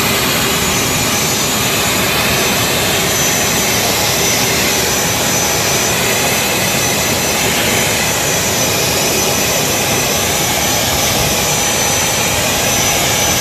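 Jet aircraft engines running: a loud, steady rush of noise with a thin, high, steady whine on top.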